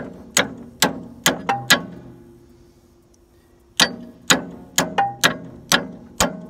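Hammer striking a steel screwdriver wedged under a new rubber wheel belt on a Timberking 1220 sawmill band wheel, driving the screwdriver around the wheel to work a twist out of the belt. Steady strikes about two a second, with a pause of about two seconds in the middle.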